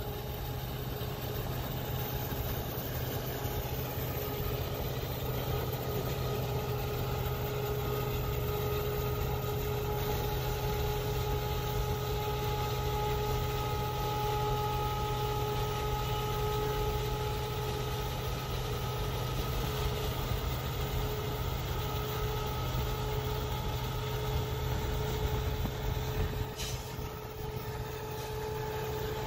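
Diesel freight train locomotive running steadily: a constant low engine rumble with a steady whine over it.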